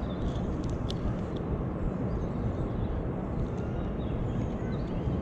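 Wind buffeting an action camera's microphone, a steady low rumble. A few light clicks of climbing gear come in the first second and a half.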